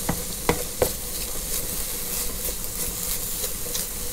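Mushrooms sizzling steadily in a frying pan on a Trangia camping stove, with a few light clicks of a utensil against the pan in the first second.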